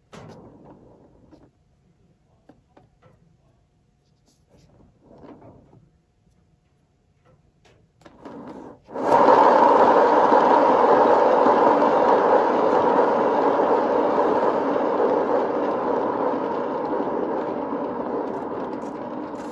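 Paint-pouring turntable spun by hand with a freshly poured acrylic tile on it: faint handling knocks, then a steady whirring rush begins suddenly about nine seconds in and slowly fades as the spin slows.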